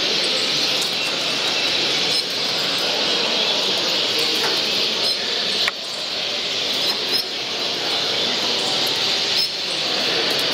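Steady, dense din of many caged songbirds calling and chirping at once, with a brief sharp click a little past halfway.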